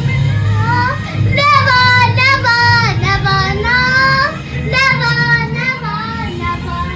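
A song playing: a high voice sings a sustained, gliding melody over steady low accompaniment.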